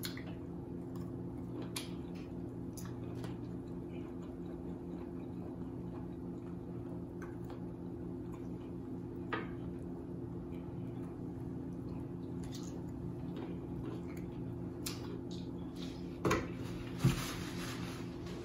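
A person eating sauce-dipped boiled shrimp close to the microphone: scattered small wet mouth clicks and squishes over a steady low hum, with two sharp knocks near the end.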